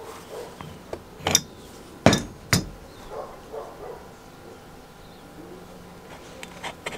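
An adjustable wrench knocks against the hex nut and brass tank of an old kerosene pressure stove: three sharp metal knocks within about a second and a half. Near the end a gritty scraping starts as the burner fitting is turned by hand on its thread.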